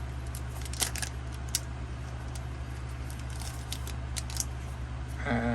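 A Pokémon booster pack being torn open and its cards handled: scattered small crinkles and clicks over a steady low hum.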